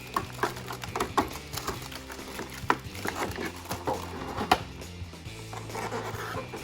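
Background music with a steady low bass line, overlaid with frequent irregular short clicks and knocks of handling.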